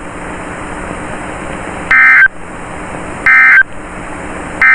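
Weather radio broadcast sending the three short end-of-message EAS data bursts that close a severe thunderstorm warning, about 1.3 seconds apart, each a fraction of a second long. Steady radio hiss with a low hum lies under and between them.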